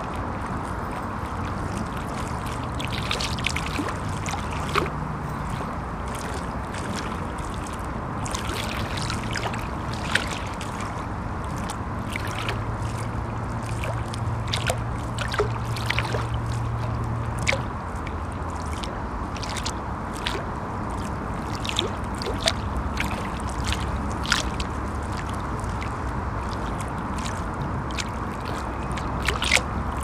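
River water lapping against the shore in small, irregular splashes over a steady wash. Underneath, a low rumble from traffic passing over a bridge comes and goes.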